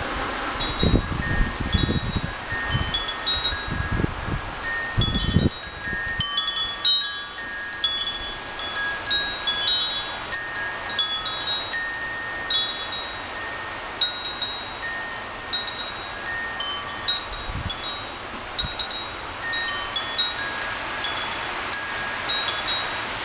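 Metal wind chime ringing irregularly in strong wind, its tubes striking in clusters of clear high tones. Gusts of wind buffet the microphone, heaviest in the first six seconds and once more near the end.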